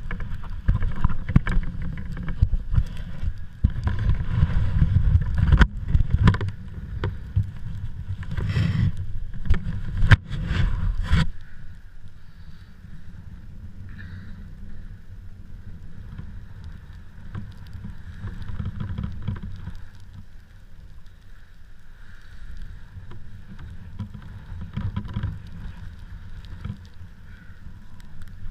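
Gusty wind buffeting the microphone with a heavy, crackling rumble that drops suddenly about eleven seconds in to a lighter, steadier rush.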